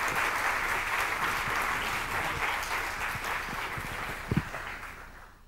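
Audience applauding, dying away near the end, with a single low thump about four seconds in.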